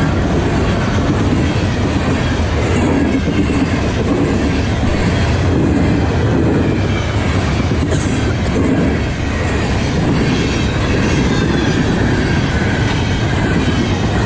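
Loud, steady clatter of a freight train's cars rolling past, wheels clacking over the rails.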